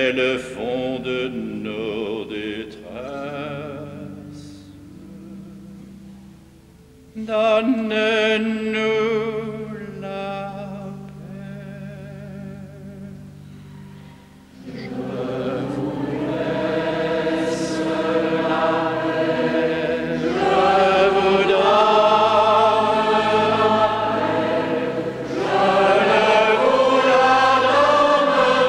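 Church choir singing a slow liturgical chant over steady low held notes. Softer, separate phrases at first, then the full choir comes in about halfway and grows louder toward the end.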